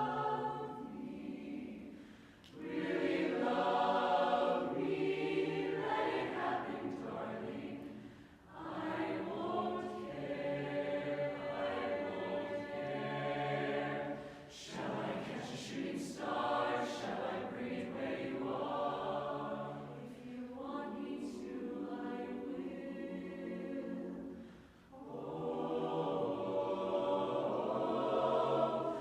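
Mixed youth chorus singing a cappella in close barbershop harmony: sustained chords in phrases of several seconds, with brief breaks for breath between them.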